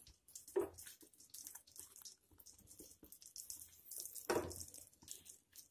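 Faint wet squelching as a round bread slice is dipped in thin gram-flour batter and laid on a buttered pan, with two soft wet sounds, a small one about half a second in and a louder one about four seconds in. A faint sizzle from the melting butter runs underneath.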